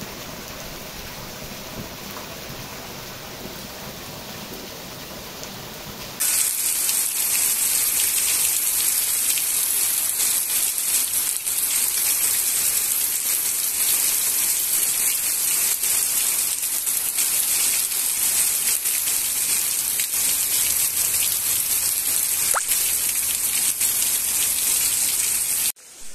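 Rain falling: a softer, even patter for the first six seconds, then an abrupt jump to a much louder, steady hiss of heavy rain that runs on until a brief drop near the end.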